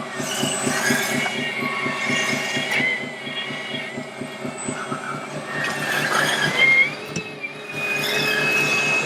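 Radio-controlled scale trucks driving: a high whine from their electric drive motors and gearboxes that rises and falls in pitch with speed, over a low, fast-pulsing rumble.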